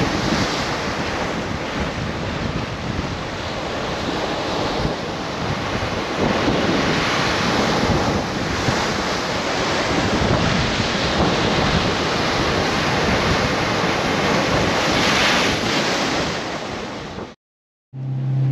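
Sea waves surging and breaking against a granite shoreline, with wind buffeting the microphone. Near the end the sound cuts out for a moment, then a motorboat engine starts in with a steady hum.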